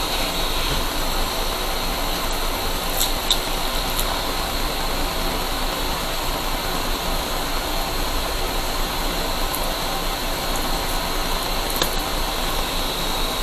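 Steady rushing background noise with a few faint clicks from the box being opened.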